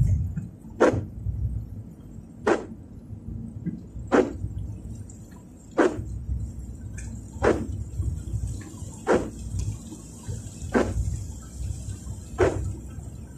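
Car windscreen wipers sweeping a wet windscreen, each stroke a short, sharp swipe at an even beat of about one every 1.6 seconds, eight in all, over the steady low rumble of the moving car.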